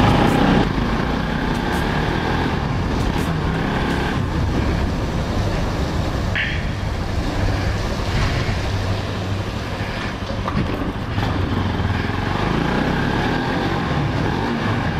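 Motorcycle engine running steadily as the bike rides along, over a constant rush of road noise.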